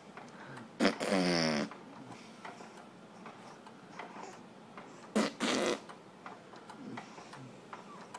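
Short non-word vocal noises: a buzzy sound falling in pitch about a second in, then two brief breathy bursts about five seconds in, with quiet between.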